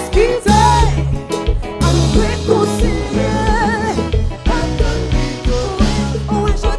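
Live band music: a singer's voice over drum kit, electric bass and guitar, playing at a steady beat.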